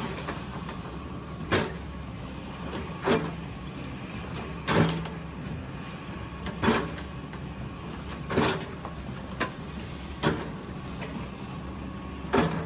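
Excavator engine running steadily during demolition of a brick building, with sharp knocks about every one and a half to two seconds.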